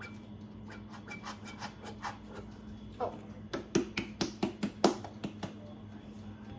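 Chocolate syrup squeeze bottle sputtering as it is squeezed: a run of quick, sharp pops and clicks that grows denser and louder in the second half, then stops.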